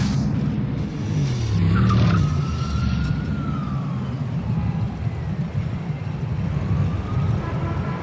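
Motor vehicle engines and city traffic rumbling steadily. A siren slowly rises and falls over them, about a second in and again near the end.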